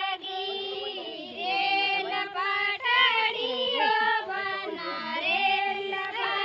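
High female voices singing a Marwari wedding song (vivah geet) in a folk melody, without instruments.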